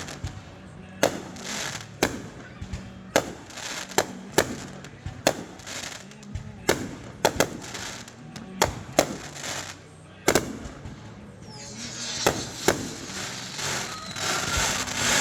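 Fireworks display: a quick succession of sharp bangs, about one or two a second, and from about twelve seconds in a dense stretch of crackling and hiss.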